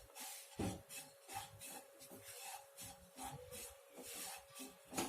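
A spatula scraping and stirring ground coconut in a hot, dry pan as it starts to roast: soft, irregular rasping strokes.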